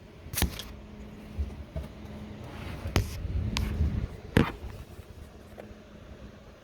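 PC cooling fans running inside a Lian Li SUP01 small tower case, heard from its right side, the side the reviewer calls the loudest: a steady low hum with a faint whoosh. A few sharp clicks and knocks break in.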